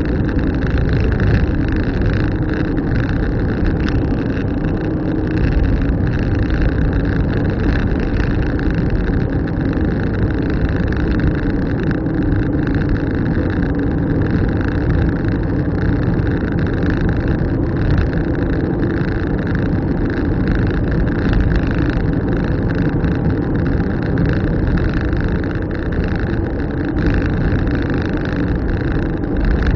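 Steady engine and road noise of a car being driven at a constant pace.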